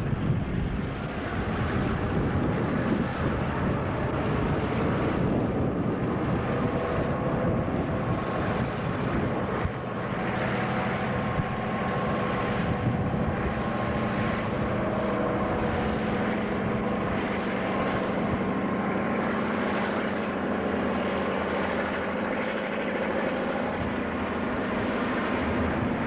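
New Zealand DC- and DB-class diesel-electric locomotives hauling a coal train past, their engines running steadily, with the coal wagons rolling by towards the end.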